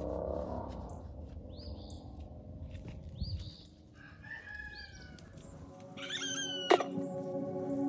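Chickens clucking and crowing at a distance, with short scattered calls through the first few seconds. Music with held notes fades in over the last two seconds.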